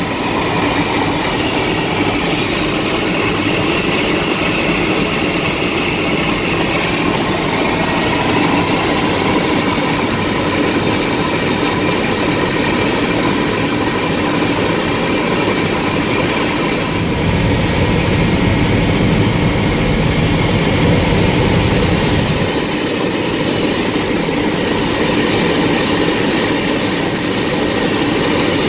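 Bell 206 helicopter's turbine engine and rotor running steadily in flight, heard from inside the cabin. A deeper low rumble swells for about five seconds a little over halfway through.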